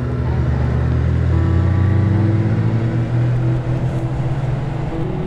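Motorcycle engine running on the move, its pitch rising steadily as it accelerates, over a constant rush of wind noise.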